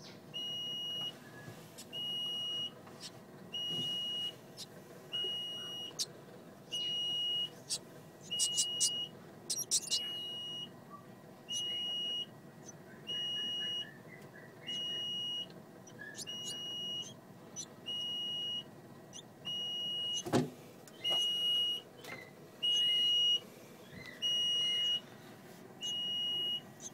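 An electronic beeper sounding a steady high-pitched beep about once a second, each beep about half a second long. A short cluster of clicks comes about a third of the way in, and a single sharp knock about three quarters through.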